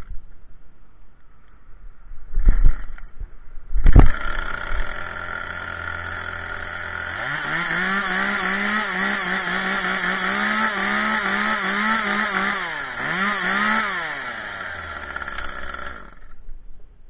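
Two-stroke chainsaw being pull-started: a sharp pull about two and a half seconds in, then it catches on the next pull about four seconds in and idles. It is revved up a few seconds later and held at high revs that waver, dips and climbs once more, drops back to idle and cuts off about sixteen seconds in.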